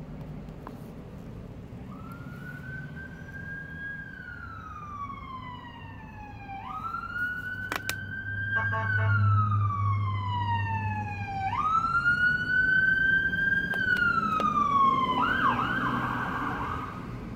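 Ambulance siren passing, a slow wail that rises and falls about every five seconds and grows louder, switching to a fast warble near the end.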